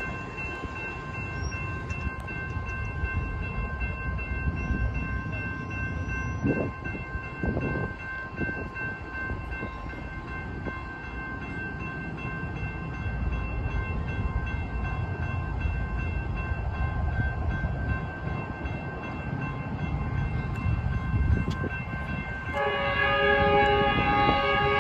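Metrolink commuter train approaching, its low rumble rising and falling, with faint steady high tones above it. Near the end the locomotive's horn sounds a loud chord.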